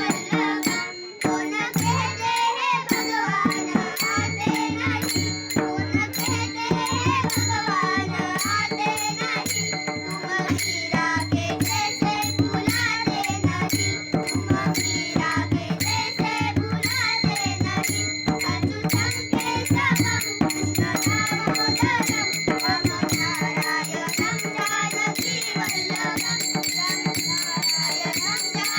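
Indian light-devotional music: a jingling rattle keeps a quick, even rhythm over a repeating low drum beat, under a wavering melody with steady held tones.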